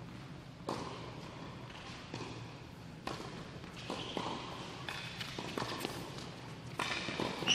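Tennis ball being struck by racquets and bouncing on an indoor hard court during a doubles rally: a string of sharp knocks about a second apart.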